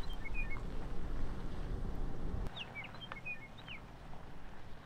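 A small bird chirping a short phrase of quick high chirps, heard twice, over a low rumble that cuts off abruptly about halfway through.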